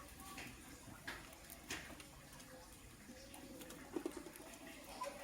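Lovebird moving about in its cage: faint scattered scratches and taps, with a few sharper clicks about a second in, near two seconds and at four seconds.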